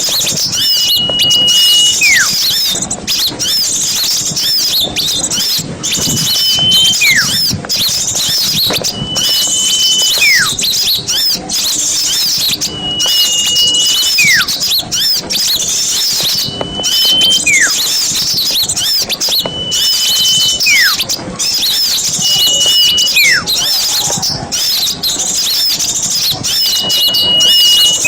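Bird-lure recording of a noisy flock of small songbirds chattering with rapid high chirps, over which a clear whistle holds one pitch for about a second and then slides steeply down, repeating roughly every three seconds.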